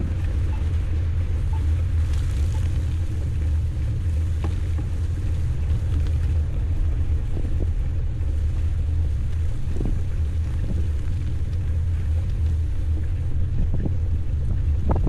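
Wind buffeting an action camera's microphone while cycling through a snowstorm: a steady low rumble.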